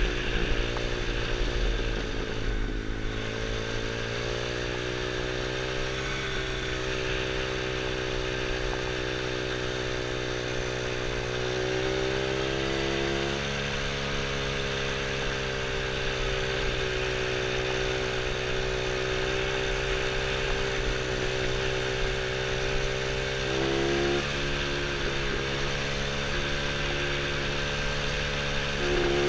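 110cc quad's single-cylinder engine running under way, its pitch wavering with the throttle and climbing for a couple of seconds about twelve seconds in, again a little before the end, and once more at the very end.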